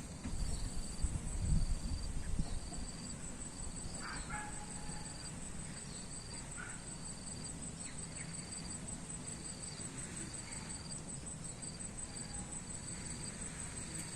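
Insects chirping: one gives a steady, fast-pulsing high trill while another calls in short repeated chirps about once a second. A low rumble sits under them in the first two seconds or so.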